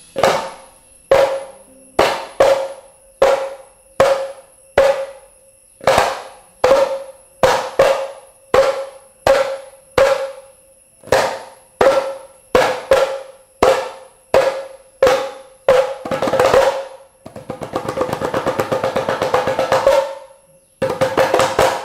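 Mizhavu, the large copper pot drums of Koodiyattam, struck by hand: single strokes at an uneven rhythm, each ringing on the same pitch, then a long rapid roll about three-quarters of the way through and a shorter roll near the end.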